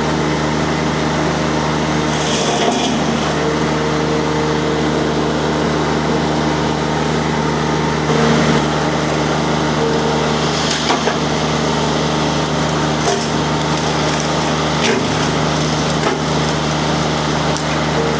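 Rippa RS06 mini skid steer's Kubota diesel running steadily under load while its disc mulcher cuts into wood, with crackling, splintering bursts every few seconds; the loudest is about eight seconds in.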